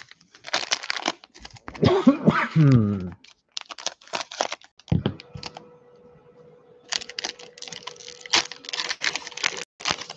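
Plastic wrapper of a Donruss Optic football card pack crinkling as it is handled, then being torn open near the end. About two seconds in there is a loud, short sound that slides down in pitch.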